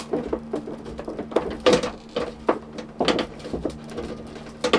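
Heat-softened orange rubber LPG hose being forced and twisted by hand onto the gas hob's metal inlet fitting: irregular rubbing, scraping and small knocks of hose against hob, a few a second.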